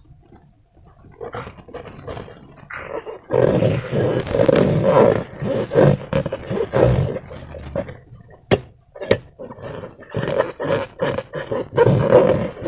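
Slime and balloons being squeezed and handled: irregular wet squishing and rubbing noises that grow loud about three seconds in, with two sharp clicks near the middle.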